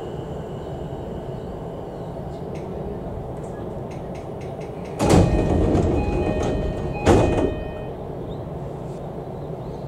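Passenger doors of an E233 series 5000 electric train sliding open at a stop. About five seconds in the doors open with a loud rush and a chime of steady tones, and about two seconds later comes a second sharp loud sound as they reach the fully open position. Before that, a faint high whine fades out in the first couple of seconds.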